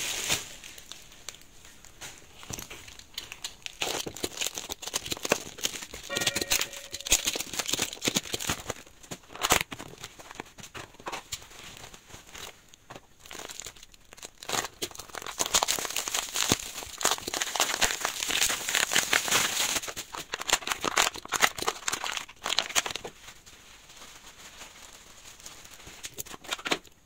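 Clear plastic wrapping being cut open with a utility knife and pulled off by hand, crinkling and crackling in irregular spells, busiest in the middle stretch.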